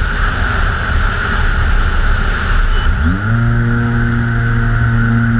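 Onboard sound of a TwinStar RC plane in flight: a rush of wind noise over a thin steady whine. About three seconds in, its electric motors spool up with a rising hum that settles into a steady tone.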